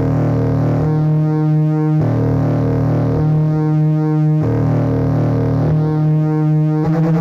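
Synthesizer noise-music drone: sustained buzzing tones that switch back and forth between two pitches about once a second, turning into a fast pulsing throb near the end.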